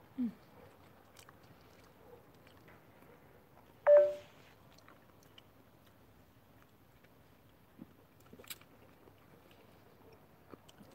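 People eating by hand at a table: faint chewing and small scattered clicks of dishes. About four seconds in comes a single sharp knock with a brief ring, like a glass or bowl being struck, and it is the loudest sound.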